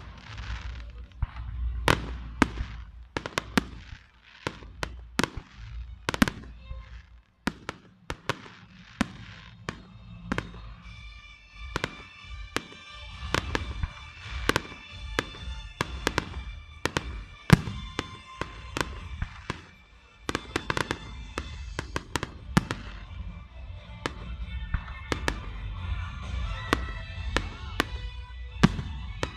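Aerial firework shells bursting in an irregular string of sharp bangs. Music plays behind them from about ten seconds in.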